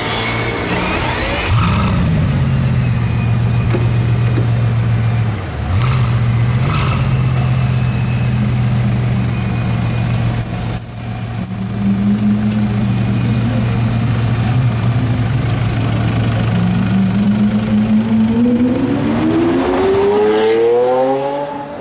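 Bugatti Veyron Grand Sport's quad-turbo W16 engine running at a steady low idle, with a brief dip about five seconds in. Near the end a car's engine note climbs steadily as it accelerates.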